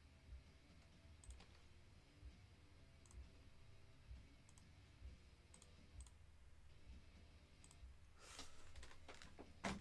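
Near silence with faint computer mouse clicks, spaced about a second apart, and a brief rustle and a sharper click near the end.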